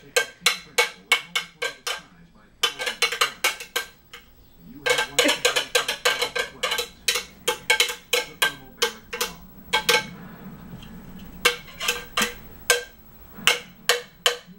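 A metal spoon banging rapidly on a bowl, each strike ringing briefly, in quick bursts of about four or five hits a second with short pauses between them.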